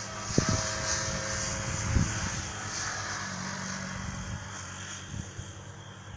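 A motor vehicle's engine running steadily as it passes, swelling over the first few seconds and then easing off. There are a couple of sharp knocks about half a second and two seconds in.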